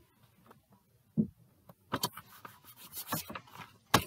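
A folder being handled and turned over: a dull thump about a second in, then a run of rubbing and rustling noises with small clicks that gets busier toward the end.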